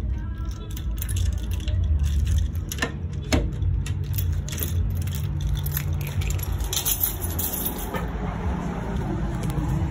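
A steady low rumble with a hum, crossed by scattered handling clicks and knocks. A glass shop door is pushed open by its metal handle near the end.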